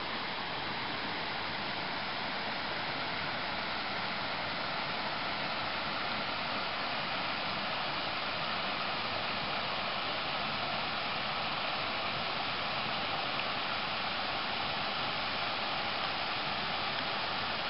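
Steady rushing of creek water flowing over rocks.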